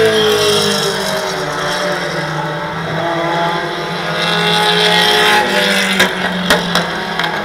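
Super mini race truck engine running at a steady idle, with engine pitch drifting up and down over it. Three sharp clicks come about six seconds in.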